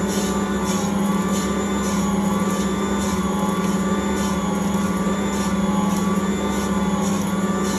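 Ankarsrum Original Assistant stand mixer running steadily, its motor humming as the bowl turns and the roller and scraper knead pizza dough, with a faint beat about twice a second.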